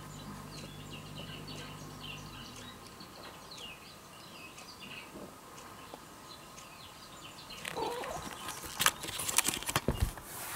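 Faint high chirps over the first half, then a quick run of sharp knocks and clicks near the end as a cat gets up and moves off across tatami mats.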